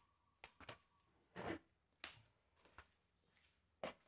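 Near silence broken by a handful of faint, sharp clicks and taps, the loudest about a second and a half in and again near the end.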